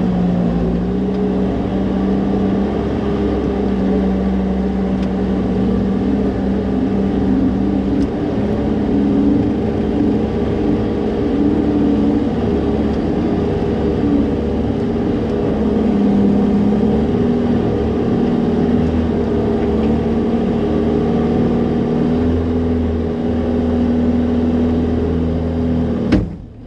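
Engine of a Terex compact track loader running steadily, its pitch shifting up and down as it works. The sound cuts off suddenly near the end.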